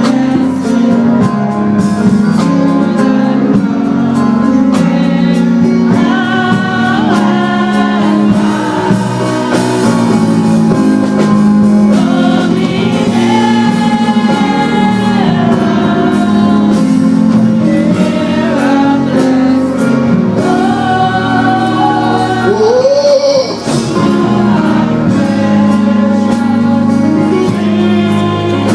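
Gospel music with singing and a choir over steady instrumental chords.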